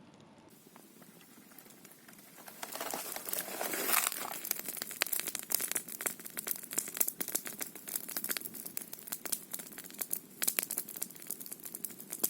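Campfire crackling: a dense, irregular run of small sharp pops and snaps that starts about two seconds in and then keeps going.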